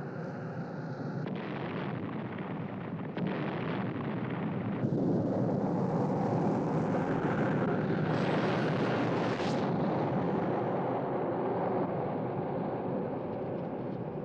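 Film sound effects of a spacecraft being destroyed by meteor debris. A dense, continuous rumble changes abruptly a few times in the first five seconds. A high whine rises from about eight seconds in and cuts off sharply at the blast, near nine and a half seconds.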